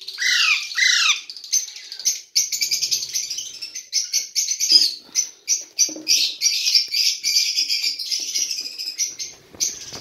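Young Alexandrine parakeets calling: two loud falling squawks in the first second, then a fast, unbroken run of harsh repeated calls. These are the calls of hungry, still hand-fed chicks.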